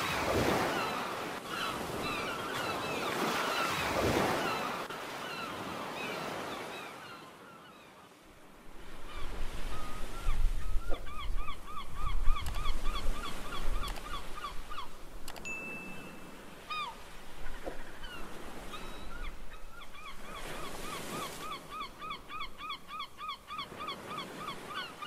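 A flock of gulls calling in fast runs of short, repeated yelping notes, over the wash of surf. The calls are denser in the second half.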